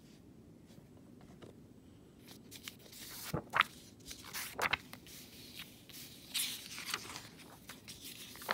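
Paper worksheets being shuffled and slid across one another, rustling and scraping with a few sharp crinkles, starting about two seconds in.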